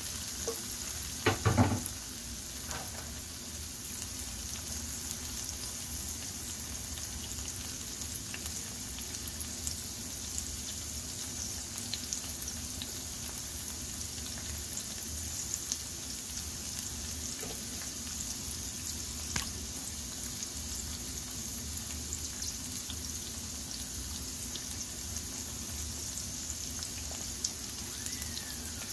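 Chopped onion, garlic, tomato and bell pepper sizzling steadily in hot oil in a frying pan, with a few sharp knocks against the pan about a second or two in.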